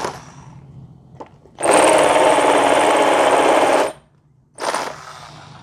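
A corded electric drill converted to run on an 18-volt Makita battery runs a masonry bit into a concrete block. It makes one steady run of a bit over two seconds, then a short half-second burst near the end.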